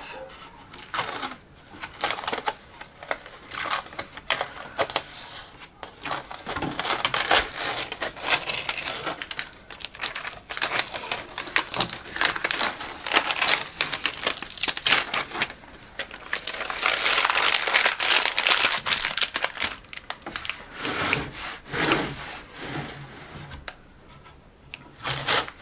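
Blue stencil vinyl being peeled off a painted wooden board and crumpled by hand: a crackling, crinkling rip full of small ticks that comes and goes, with a few short quieter spells.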